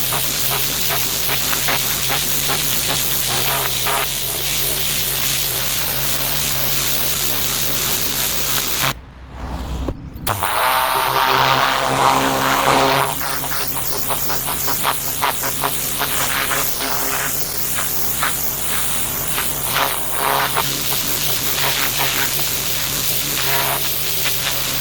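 Pressure washer spraying water on paving, a steady hiss over the hum of its motor. It cuts out sharply for about a second around nine seconds in, then starts again.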